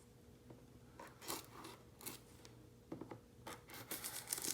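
A Swiss Army knife blade cutting open product packaging, with faint, scattered scraping and crinkling strokes that get busier and louder near the end.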